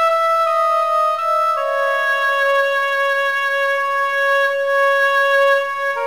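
Computer score playback of a slow two-part hymn: two parts move in parallel in a steady, sustained flute-like tone, with a few note changes in the first second and a half and then a long held chord. No singing.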